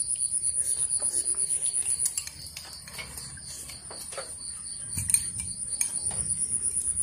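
A cricket-like insect chirring in a fast, even, high-pitched pulse, breaking off about two seconds in and starting again around five seconds. Light clicks of chopsticks and spoons on bowls, with one louder knock about five seconds in.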